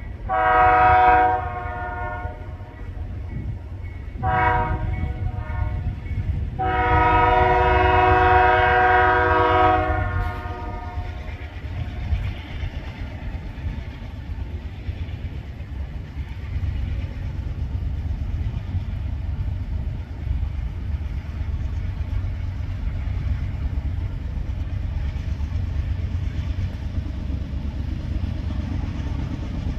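Three-chime Nathan K3HA air horn on a GE AC44CW diesel locomotive blowing a long blast, a short blast, then a longer blast of about three seconds. The steady low rumble of the approaching train runs underneath.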